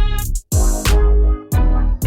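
Background music with a beat: heavy bass notes, sharp drum hits and sustained synthesizer tones, cutting out briefly about half a second in.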